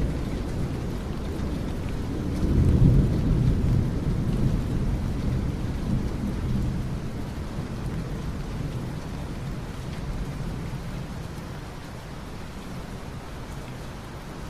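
Steady rain with a long roll of thunder that swells about two and a half seconds in and slowly dies away.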